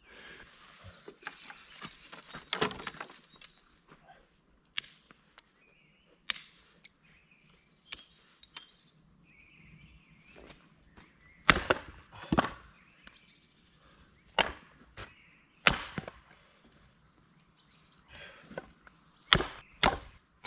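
Axe splitting small pine logs and branches: about ten sharp chopping strikes at irregular intervals, with a close pair just before the end.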